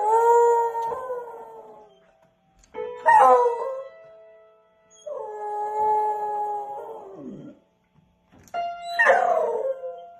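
A beagle howling while pressing piano keys with its front paws: four long howls, each starting as keys are struck, with the piano notes ringing on beneath them.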